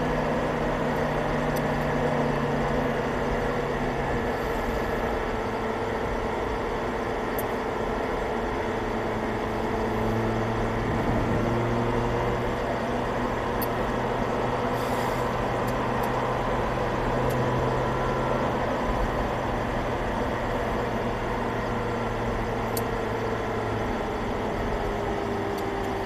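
Audi R8's V10 engine cruising gently at steady low revs, with road and wind noise, heard inside the car's cabin.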